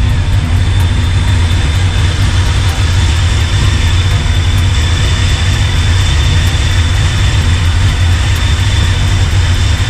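Chevrolet C10's Vintage Air heater blower running steadily over the idling engine: an even rush of air with a thin high whine above a low engine hum. The heater is blowing warm air now that the cooling system has been burped.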